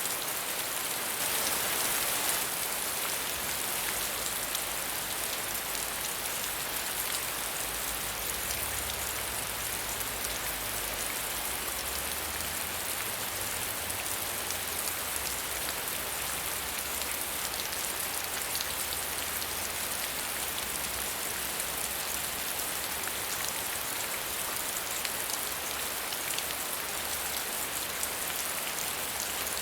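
Steady medium rain falling, a dense even patter of drops on surfaces, swelling a little for a moment about a second in.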